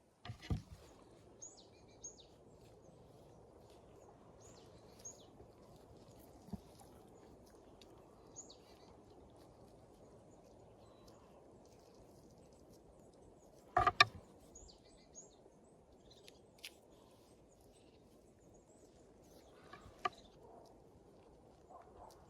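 Outdoor background ambience: a steady low rumble of noise with birds chirping briefly now and then. A few sharp clicks or knocks come through, the loudest about fourteen seconds in and another near twenty seconds.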